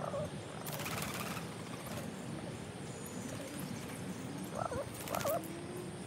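Rock pigeons: a flutter of wings about a second in and again about five seconds in, with a low drawn-out coo and two short curving calls near the end, over a steady low background hum.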